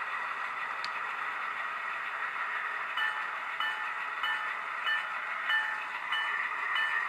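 Soundtraxx Tsunami sound decoder in an Atlas HO-scale ALCO C424 model locomotive playing a running diesel engine sound through its small speaker as the model rolls slowly. About three seconds in, a bell starts ringing, about one and a half strokes a second.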